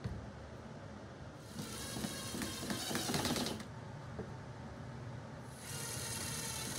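Cordless driver running screws into the joints of a pine furring-strip frame, in two bursts: one about a second and a half in lasting about two seconds, and another starting near the end.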